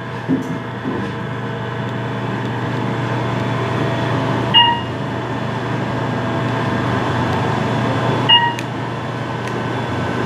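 Otis Gen2 elevator chime sounding twice, about four seconds apart, each a short electronic beep, over a steady low hum.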